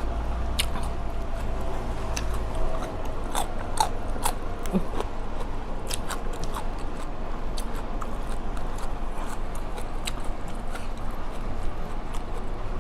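Close-miked chewing and mouth smacks of someone eating spicy red ant egg salad, with many short, irregular wet clicks over a steady low hum.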